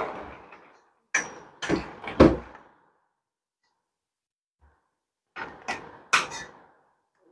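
Plastic hanger bracket knocking and clicking against the stainless steel tube of a cloth drying stand as it is tilted and pushed on until it locks in place. Three sharp knocks come about a second in, then a pause, then three or four more near the end.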